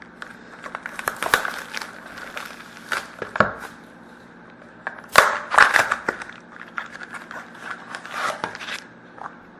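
Hands unwrapping and opening a sealed trading-card mini box and its packs: irregular crinkling, tearing and rustling of wrapper and cardboard, busiest about five to six seconds in.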